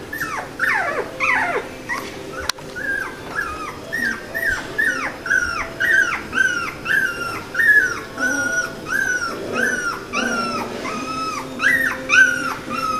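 Three-week-old poodle puppies crying in a steady run of short, high-pitched whimpers, about two a second, each one rising and then falling in pitch.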